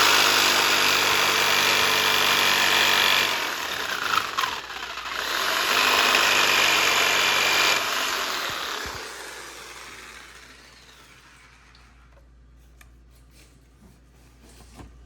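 Electric power tool running at full speed in two long runs, trimming the wooden spindles of a boat frame. It winds down briefly between the runs, and after the second it spins down and fades out. A few light taps and clicks follow near the end.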